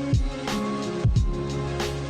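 Background music: a pitched melody over a steady beat with a deep, falling bass-drum hit about every two-thirds of a second.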